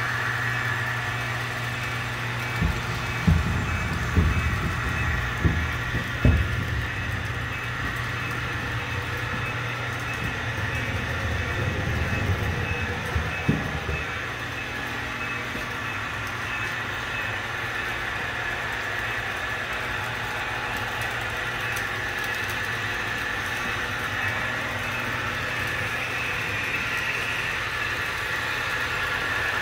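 HO-scale model trains running on the layout: a steady mechanical hum with a higher whine over it. A few low thumps come in the first half.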